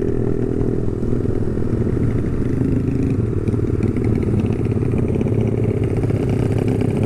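Honda CB150R's single-cylinder engine running at a steady pace through a BSS aftermarket exhaust, with no revving.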